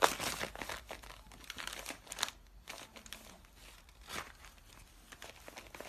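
Crinkly plastic food packaging rustling and crackling in irregular bursts as a cat rummages in it.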